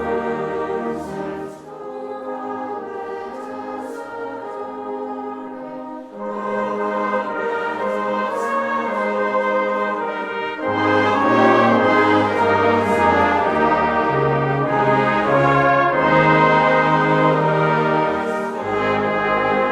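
Brass music: slow, sustained chords in long phrases, with a fuller, louder passage from about halfway through.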